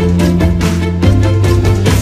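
Background music with a steady beat and sustained bass notes; the bass note changes about halfway through.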